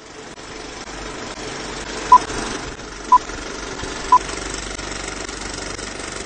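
Three short, loud electronic beeps, one a second, over a steady rushing hiss and hum that fades in from silence.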